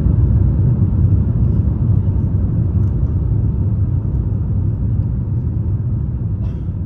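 Jet airliner cabin noise in climb: a steady low rumble of the engines and rushing air, easing slightly over the seconds.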